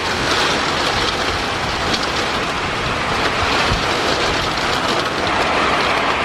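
Thunderstorm wind gust and heavy rain, a loud, steady rushing noise with low rumbling wind buffeting on the microphone.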